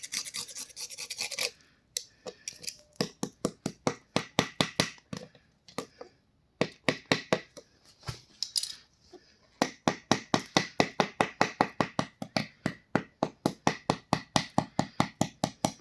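A blade scraping hard scale deposits off an immersion water heater's heating rod, first one continuous scrape, then quick short strokes at about four to five a second with two brief pauses. The thick scale crust is what keeps the heater from heating water.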